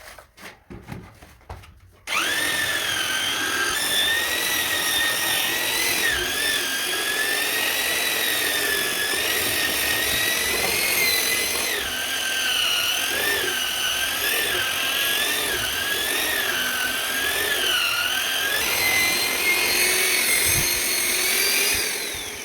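Handheld electric power tool running under load for about twenty seconds, starting abruptly a couple of seconds in after a few knocks. Its motor whine wavers up and down as the load changes, then winds down near the end.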